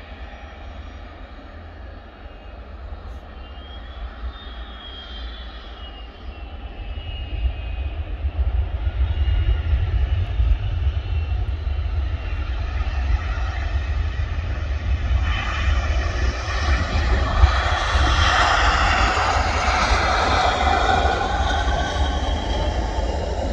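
Jet airliner engines on departure, their noise building over several seconds with a high whine that glides in pitch, growing loudest in the last third and then cutting off suddenly at the end.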